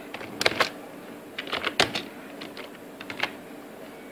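Computer keyboard typing: a few short clusters of keystrokes with pauses between them.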